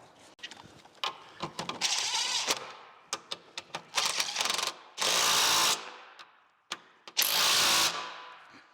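A ratchet running in the bushing bracket bolts: several runs of ratchet clicking, with two louder, steady bursts of about two thirds of a second, one near the middle and one near the end.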